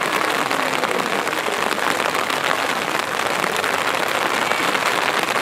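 Steady rain falling: a dense, even hiss of many small drop ticks.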